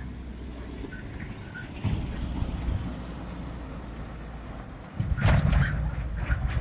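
Low, steady rumble of heavy vehicle engines at a road construction site, getting louder with a rush of noise about five seconds in.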